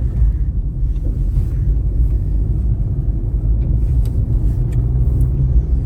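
Steady low rumble of a vehicle driving along the road, heard from on board.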